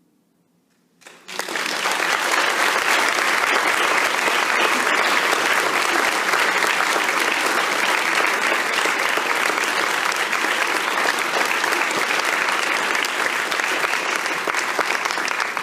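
Audience applauding, bursting in about a second in after a brief silence and continuing steadily.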